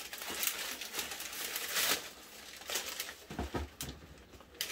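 Tissue wrapping paper rustling and crinkling as hands dig through it inside a cardboard shoebox, with a soft knock or two about three and a half seconds in.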